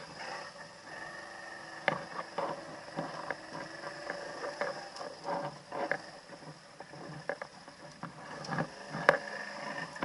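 ATV (quad bike) running at low throttle, with irregular knocks and clatters from the machine as it moves over rough, muddy ground.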